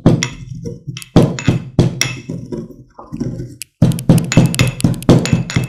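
Pestle pounding cumin seeds in a mortar to a coarse powder: repeated knocking strikes, each with a short ring, at an uneven pace of roughly two a second, with a brief pause about halfway.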